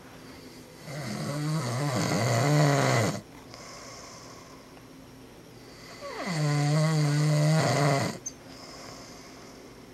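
A man snoring in his sleep: two long, pitched snores of about two seconds each, one about a second in and another about six seconds in, the second sliding down in pitch as it starts.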